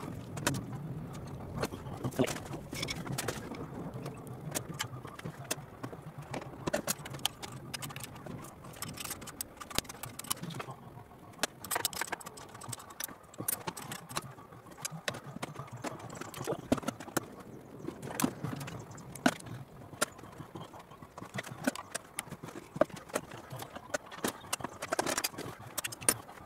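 Sped-up workshop sound of spanner work on an MGB engine: rapid, irregular metallic clinks and knocks of tools and engine parts.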